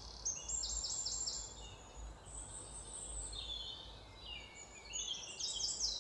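Small birds chirping in the background, with quick runs of short high chirps near the start and again near the end, over a faint low hum.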